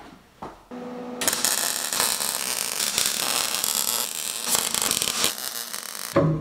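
Wire-feed (MIG) welder arc crackling steadily as it tack-welds the steel quick-attach mounts in place. The arc strikes a little over a second in and runs for about five seconds.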